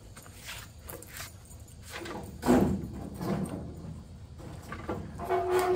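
A 1948 Willys truck's steel bed being lowered onto a wooden pallet: a loud thud about two and a half seconds in, then scraping and shifting as it settles, and a second clattering knock with a brief ringing note near the end.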